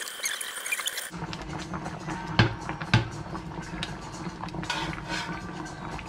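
Cooked chicken scraped with a spatula from a frying pan into a pot of curry: two sharp knocks of the utensil against the pan, over a steady hum and light crackling clicks. Before this, high chirping sounds cut off abruptly about a second in.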